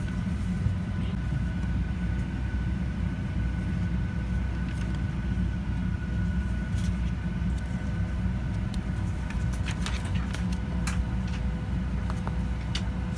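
Steady low rumble of a Boeing 737-900's passenger cabin with a faint steady hum over it, and paper rustling as glossy magazine pages are turned, several times in the second half.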